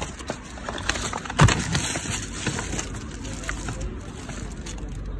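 Plastic bin bags and cellophane-wrapped fruit packs rustling and crinkling as a gloved hand rummages through a bin of discarded produce, with a sharp knock about a second and a half in.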